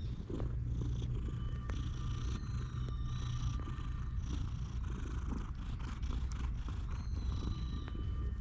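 Tabby cat purring steadily right beside the microphone while being stroked on a lap.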